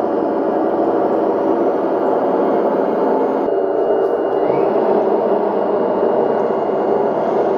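RC tank electronic sound unit playing its simulated tank-engine sound through a small speaker: a steady, loud running noise with a held hum. About three and a half seconds in, the sound changes slightly and a brief rising tone is heard.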